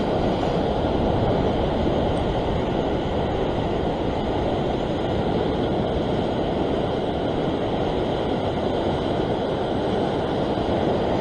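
Steady rush of heavy sea surf breaking against a rocky shore, with no single wave crash standing out. The swell is running strong.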